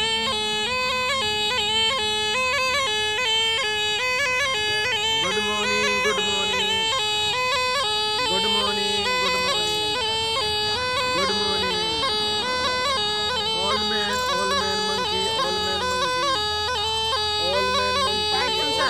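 Snake charmer's pungi, the gourd-bodied wind pipe, playing a quick, continuous melody of short, rapidly changing notes.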